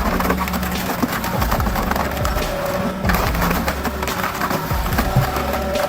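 Background music with a steady bass, over many sharp cracks and snaps of wood as a tractor-mounted hydraulic splitter forces a large log apart.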